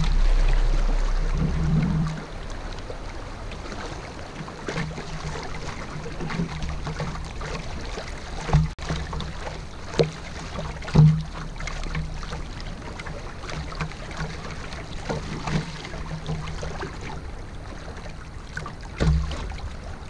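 Canoe paddling down a river: a steady wash of moving water with irregular knocks and splashes from the paddle and hull. The loudest knocks come about halfway and near the end. A louder low rumble fades out about two seconds in.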